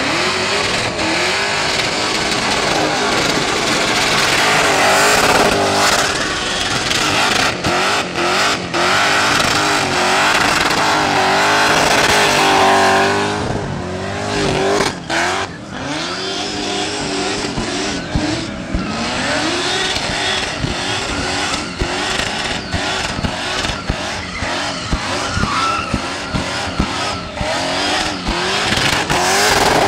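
Supercharged Holden VL Commodore doing a burnout: the engine is held at high revs, its pitch rising and falling as the throttle is worked, over the steady screech and hiss of spinning rear tyres. There are a few brief lifts of the throttle about halfway through.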